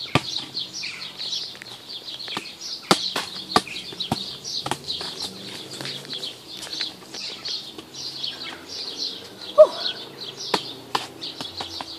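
A football being kicked in keepy-uppies, heard as irregular thuds clustered about three to five seconds in and again near the end. Continuous high-pitched birdsong runs underneath.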